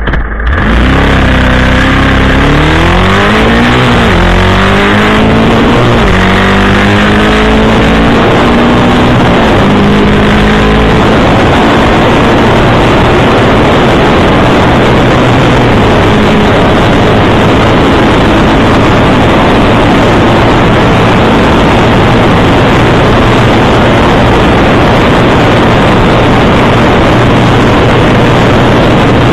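Loncin motorcycle engine accelerating hard, its pitch climbing and dropping back at about five upshifts in the first ten seconds or so. After that it holds steady at around 180 km/h under a loud, even rush of wind on the microphone.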